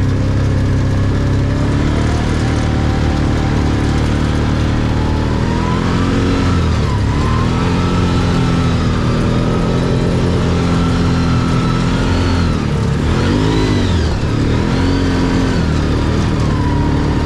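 Can-Am Maverick side-by-side's engine running under load on a test drive of its new STM primary clutch. The pitch climbs and falls several times as it accelerates and eases off, with the sharpest dips about seven and thirteen seconds in.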